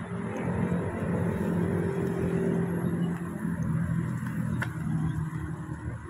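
Road traffic passing close by: a motor vehicle's engine gives a steady low hum over road noise, easing off near the end, with one short click shortly before.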